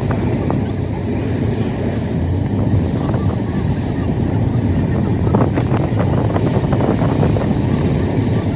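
Steady low rumble of wind and road noise, as from a moving vehicle, with faint voices in the background about five and a half seconds in.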